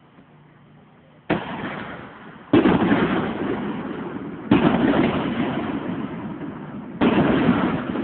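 Fireworks shells bursting: four sudden booms, the second and third the loudest, each trailing off in a long fading echo.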